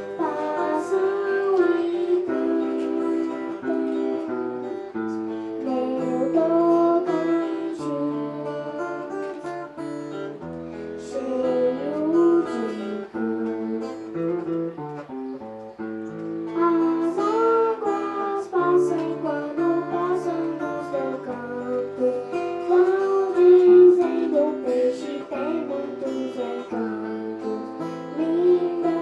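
A young girl singing a song into a microphone, accompanied by a strummed acoustic guitar.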